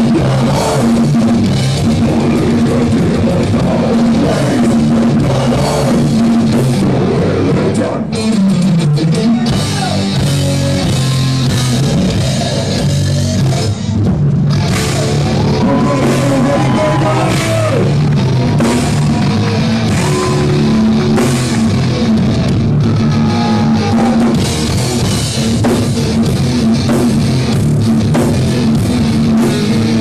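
Heavy metal band playing live: distorted electric guitars, bass and a pounding drum kit, loud and dense throughout, with a sliding lead line in the middle.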